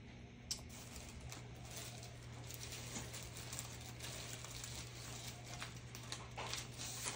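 Faint rustling of paper being handled over a gelli printing plate, with a sharp click about half a second in, the rustling slowly getting louder.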